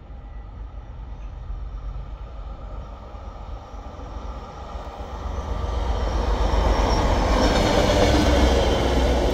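NMBS/SNCB class 62 diesel locomotive approaching and passing through the station, its engine rumble building to loudest about eight seconds in, with a thin ringing from the wheels on the rails.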